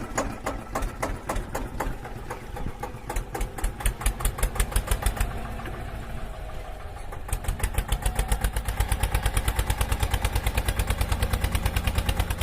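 John Deere 8360R tractor's six-cylinder diesel engine running with a fast, even pulsing beat, which grows steadier and a little quicker past halfway.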